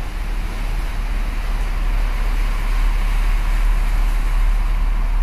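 Waves washing and breaking on a rocky shore, over a heavy, unsteady low rumble of wind on the microphone, growing slightly louder.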